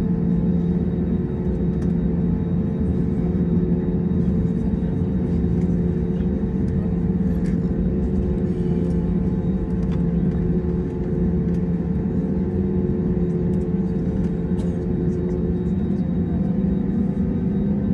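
Airbus A320neo cabin noise heard beside the wing, with its CFM LEAP-1A turbofans running steadily at low power before the takeoff roll. It is an even hum with a low drone and a fainter steady higher tone, and it does not spool up.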